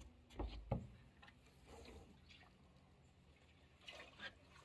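Two dull footstep thuds on wooden dock boards within the first second, then near quiet with a few faint ticks near the end.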